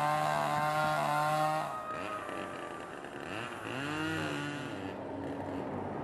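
A chainsaw engine revving. It holds at high speed, drops back about two seconds in, then revs up and down once more.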